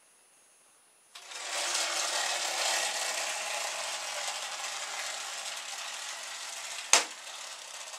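Rubber-band-driven lolly-stick propeller on a paper-clip shaft spinning as the wound rubber bands unwind, starting suddenly about a second in and slowly fading as the bands run down. A sharp knock near the end as the propeller hits the side of the bath.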